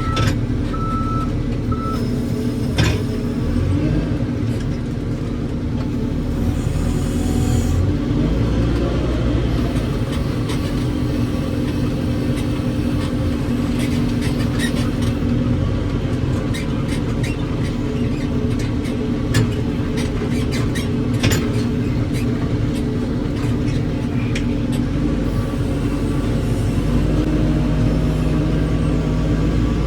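Heavy diesel engine running steadily, with a few short beeps near the start and scattered clicks and knocks through the middle.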